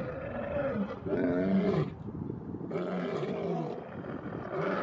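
Two male lions roaring: a run of low calls one after another, each about a second long or less, with short breaks between them.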